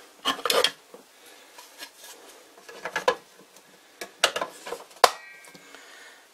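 Plastic front cover of an NF-9000 variable frequency drive being handled and fitted into place: a string of light clicks and knocks, with a sharp snap about five seconds in.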